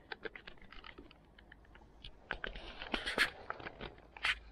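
Handling noise: irregular light clicks and rattles, with a denser, louder cluster about two to three seconds in.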